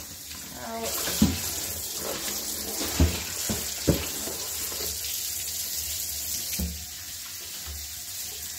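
Kitchen faucet running water into a plastic tub in the sink, splashing as the tub is emptied and refilled. A few sharp knocks as the tub is handled, and the splashing eases about seven seconds in.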